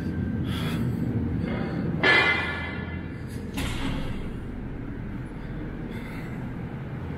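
Steady low hum of air conditioning in a climate-controlled underground room, with a brief squeak about two seconds in, then the rattle of a glass-panelled metal door being pulled open.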